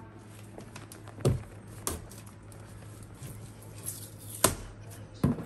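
Plastic safety box cutter slitting the packing tape along a cardboard box's seam, with scratchy scraping and a few sharp knocks and taps from handling the box and cutter.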